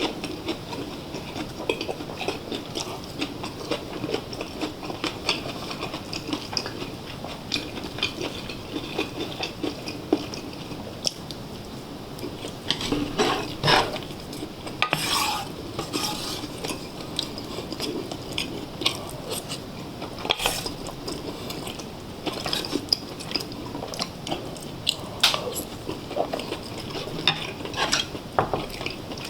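Utensils stirring, scraping and clinking against a bowl and the hot pot of tripe stew, in many small irregular knocks.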